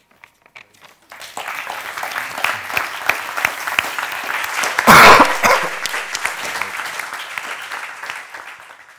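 Small audience applauding, the clapping starting about a second in and tapering off near the end, with one louder close burst about halfway through.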